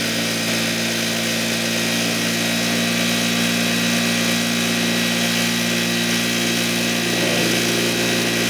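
Juki industrial single-needle straight-stitch sewing machine running continuously at speed, stitching around a denim pant leg: a steady, smooth mechanical whir with an even hum underneath. The machine is freshly cleaned and re-oiled and is being run to flood the new oil through it; its sound is smooth and consistent, with no irregularities.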